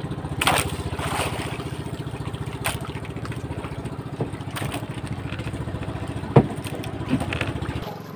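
Outrigger fishing boat's small engine running steadily with a rapid putter. A few sharp knocks cut across it, the loudest about six and a half seconds in.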